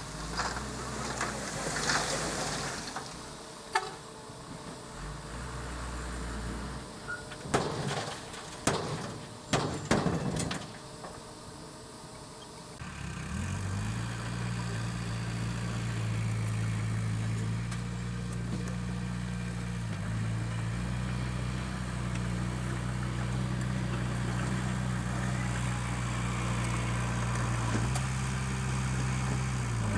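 Scattered sharp knocks and clatter in the first half. About halfway in, a heavy machine's diesel engine starts up and runs steadily.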